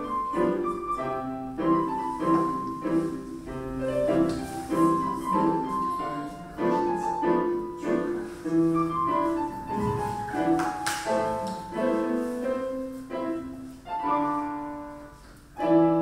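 Piano music playing a melody of separate notes, with a single short click about eleven seconds in.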